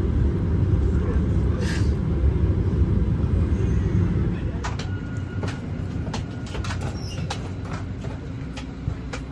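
Low rumble of a vehicle in motion that eases off about four seconds in, followed by a series of sharp clicks and knocks.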